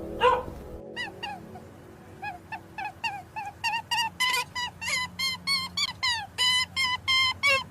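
An animal calling: one short loud cry near the start, then a fast, even run of short high-pitched calls, about three a second, growing louder, some sliding down in pitch.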